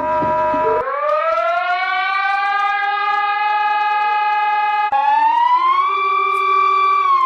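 A voice doing an impression of a wailing siren. A sustained tone rises about a second in and holds, breaks off for a moment near five seconds, then rises again, holds, and starts to fall at the very end.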